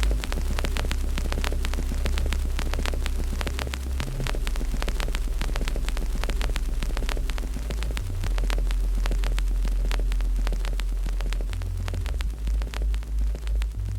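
Wood fire crackling with many small irregular pops, over a deep steady hum that shifts pitch every few seconds.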